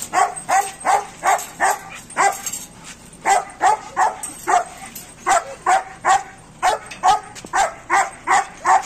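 German Shepherd barking over and over, about two to three barks a second, with short pauses about three and six seconds in.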